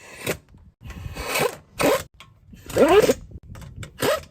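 Impact gun fired in about five short bursts, each a fraction of a second long, with a rising whine as the motor spins up.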